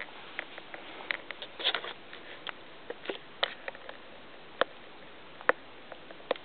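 Scattered small sharp clicks and soft rustles from a baby playing on a play mat, irregular, with a few louder single clicks in the second half.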